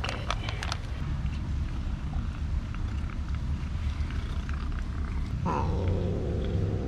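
Orange kitten purring loudly, a steady low rumble, while it eats wet cat food, with a few wet clicks at the start as the food pouch is squeezed. About five and a half seconds in, a louder, rougher cat sound joins the purr.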